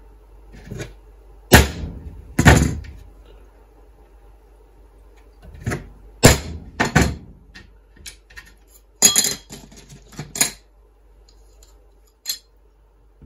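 Claw hammer striking a punch held on small 2 mm aluminium capacitor plates laid on a wooden board, marking drill-hole positions: about seven sharp metallic strikes at irregular intervals, with a few lighter taps between.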